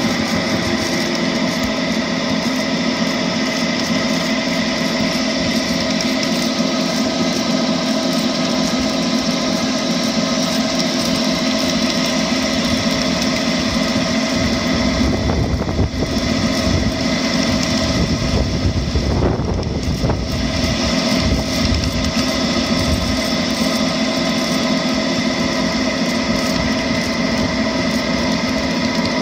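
Ride-on miniature railway locomotive, a model Western diesel, running steadily along the track, heard from on board: a constant mechanical hum of its drive with several steady tones.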